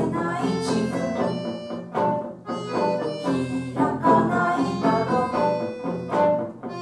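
Live band playing an instrumental piece: a busy melody of short pitched notes over a steady low accompaniment, with a few sharp accented hits.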